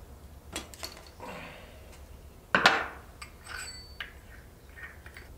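Small parts being handled at a moped's carburettor and air filter: scattered clicks and clinks, a short rustle, and one louder clatter about two and a half seconds in.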